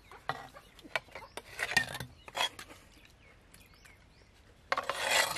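Steel tumblers clinking and scraping against a clay pot and each other as rice-water is scooped up and drunk, in short clicks and brief noisy scrapes, with a longer, louder noisy rush about five seconds in.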